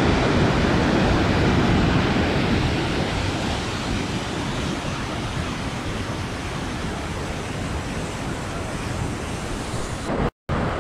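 Mountain waterfall and cascade rushing over granite rocks: a steady, loud wash of white water, cut off briefly near the end.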